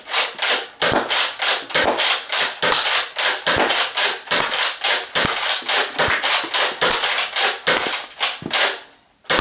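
Nerf Delta Trooper dart blaster being worked and fired over and over: a fast run of sharp plastic clacks and clicks, two or three a second, that stops just before the end.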